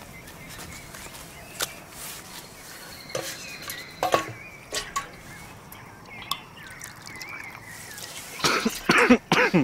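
Aluminium kettle clinking a few times as it is picked up and handled, then water poured from its spout straight into the mouth and gulped, loud near the end.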